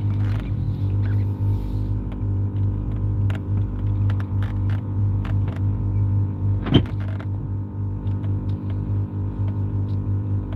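Car engine running at low speed, a steady low hum heard from inside the cabin, with one brief sharp sound about two-thirds of the way through.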